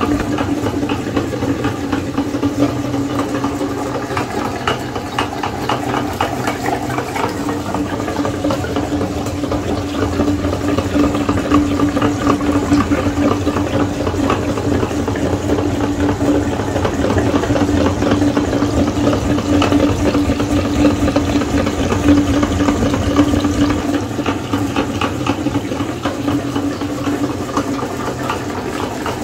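Hand-cranked metal meat grinder churning soft jelly, a wet squelching and crackling as it is forced through the perforated plate, over a steady low hum.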